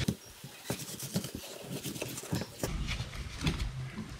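A filleting knife and a rig shark fillet being worked on a plastic cutting board on a stainless steel bench while the fillet is skinned: scattered taps, knocks and scrapes.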